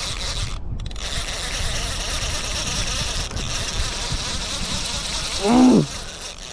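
Fishing reel drag buzzing steadily as a hooked stingray pulls line off the spool. A short voiced exclamation comes near the end.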